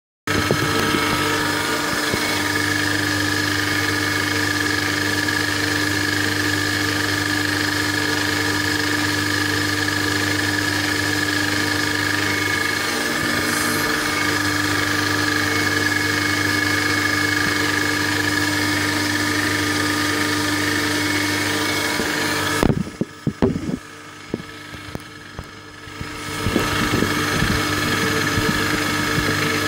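Milling machine driving a homemade cutter with two APMT carbide inserts through cold-rolled steel: a loud, steady machine hum of several tones over the noise of the cut. About three-quarters of the way through, the sound drops away for a few seconds with a few knocks, then comes back at full level.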